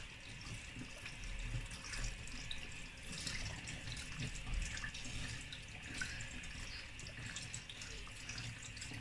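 Kitchen tap running steadily while pieces of mackerel are rinsed and rubbed by hand, with small scattered wet handling clicks.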